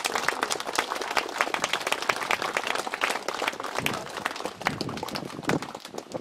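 An audience applauding: many hands clapping densely, thinning out near the end.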